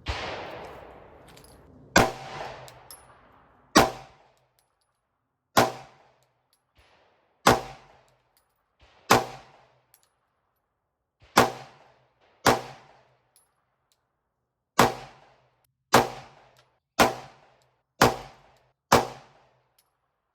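Thirteen single 9mm gunshots fired one at a time at a target, spaced about one to two seconds apart, each a sharp crack with a short ringing tail; the shots come quicker near the end.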